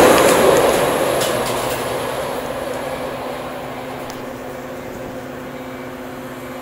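A Metra express train's rear diesel locomotive and bilevel cars rush past at speed, the loud rail rumble fading steadily over about three seconds as the train pulls away. A quieter steady hum remains.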